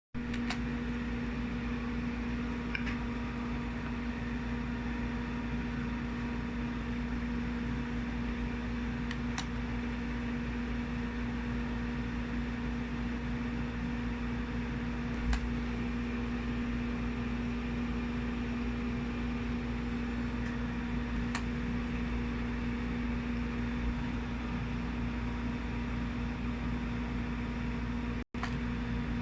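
A steady hum with a constant low tone, broken by a brief dropout about a second before the end.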